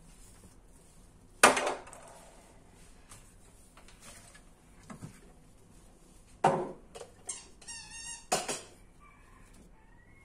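Kitchen items being lifted out of a cupboard and set down on the shelf: a sharp knock about a second and a half in, then several more knocks and clatters near the end, with a brief squeak among them.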